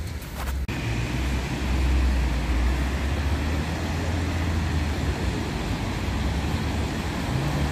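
Steady city street traffic: cars driving past with a low engine and tyre rumble. In the first moment, a few footsteps crunch on snow before an abrupt cut.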